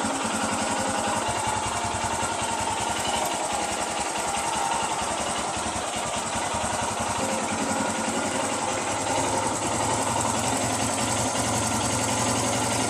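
Royal Enfield Himalayan 411's air-cooled single-cylinder engine idling steadily.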